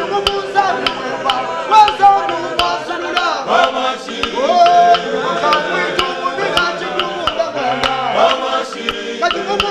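Gospel choir singing with a male lead voice over a steady percussive beat.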